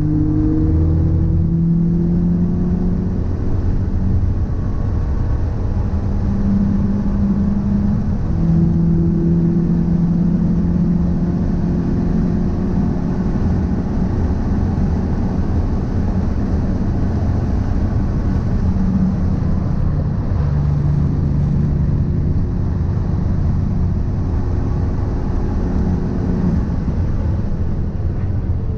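Car being driven: engine and road noise with a steady low rumble, the engine note slowly rising and then dropping back to a new pitch several times as it accelerates and changes speed.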